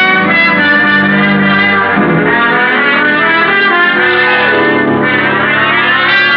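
Orchestral musical bridge led by brass, loud and dramatic, holding and shifting sustained chords between two scenes of the radio drama.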